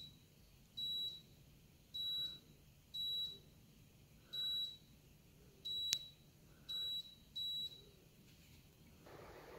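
MRCOOL DIY 12K ductless mini-split indoor unit beeping in acknowledgement of each remote-control press as the set temperature is stepped down, about eight short high beeps at uneven intervals. A sharp click sounds about six seconds in, and a faint steady hiss begins near the end.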